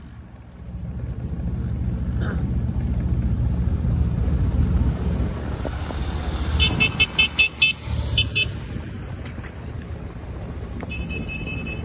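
Motor vehicle running with a steady low engine rumble, with a quick string of about six short horn toots a little past halfway, two more just after, and further beeping near the end.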